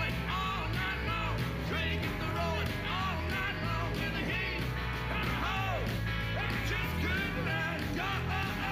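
Rockabilly band playing live: a hollow-body electric guitar and upright bass, with a man singing.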